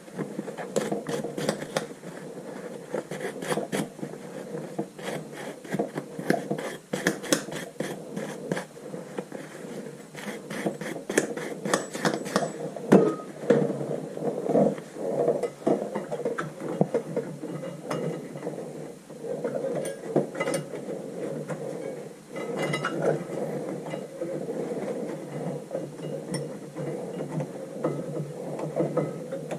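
Metal tools and rear-brake parts clinking and tapping during brake service work, many quick knocks in the first half and fewer later, with some scraping.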